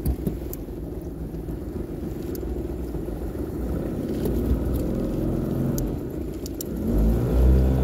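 A small boat motor running steadily as the kayak moves through the water, growing louder near the end.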